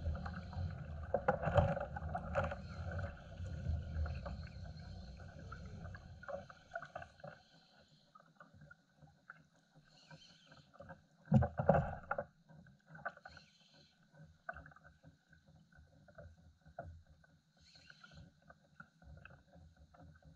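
Small waves lapping and slapping against the plastic hull of an RTM Hiro sit-on-top kayak at sea, with scattered small clicks and knocks on the boat and a louder knock about eleven and a half seconds in. A low rumble runs through the first six or seven seconds, then fades.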